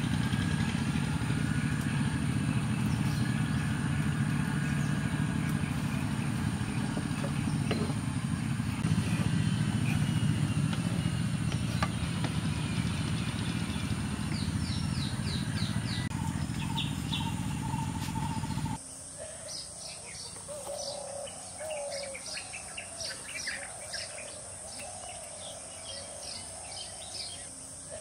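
Small birds chirping in quick, short, repeated notes, with a few longer calls. For the first two-thirds a loud, steady low rumble of unclear source partly covers them, then it cuts off suddenly.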